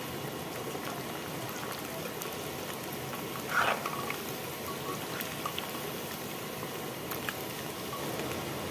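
Small fish frying in hot oil in a metal kadai: a steady sizzling crackle. About three and a half seconds in, the steel ladle briefly scrapes against the pan.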